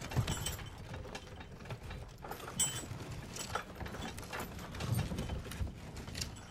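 Irregular mechanical rattling and clattering: many small knocks and clicks over a low rumble.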